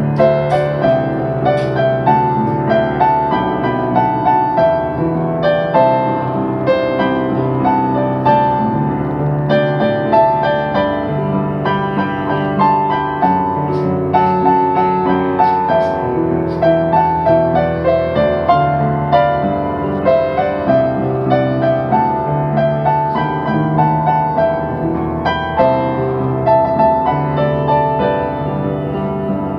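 Solo piano playing a pop-song arrangement: a melody in the middle register over sustained bass notes, struck continuously at a steady moderate tempo.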